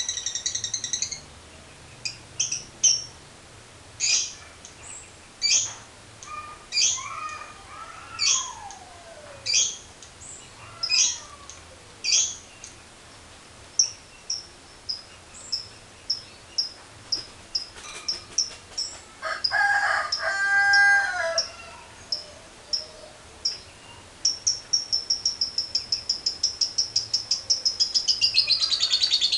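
Lovebird calling: sharp, high chirps about every second and a half, growing shorter and quicker, then breaking into a fast, continuous chattering trill near the end, the long 'ngekek' chatter. A lower, drawn-out call sounds about twenty seconds in.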